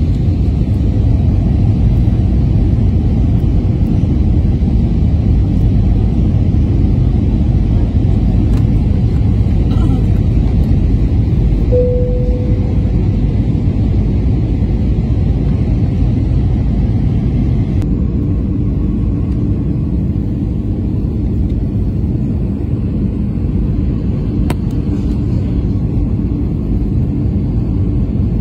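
Steady low roar of cabin noise inside an Airbus A320-family airliner descending on final approach. A short single tone sounds about twelve seconds in, and a little past halfway the roar eases slightly as a faint low hum comes in.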